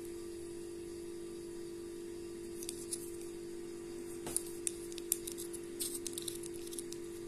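Light clicks and small scrapes of fingers handling a metal Industar-61 camera lens, scattered from a few seconds in to near the end, over a steady low hum.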